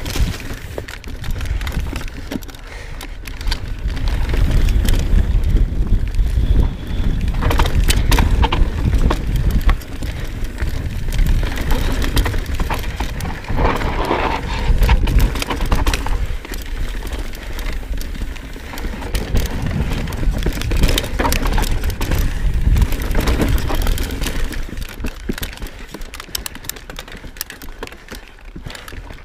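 Knolly Fugitive mountain bike descending a dirt singletrack: tyres rolling over dirt and roots with the chain and frame clattering, over a heavy rumble of wind on the camera's microphone. It gets quieter over the last few seconds.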